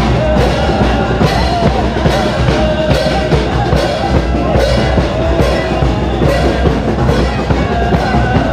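Loud music with a steady drum beat and a wavering melody line.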